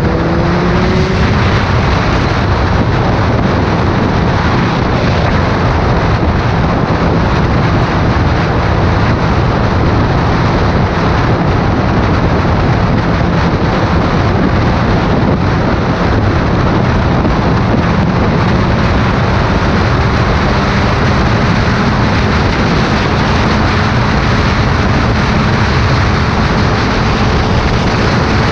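Motorcycle riding at road speed: a steady rush of wind over the microphone, with the BMW K1300S's inline-four engine humming underneath. The engine note rises briefly at the start.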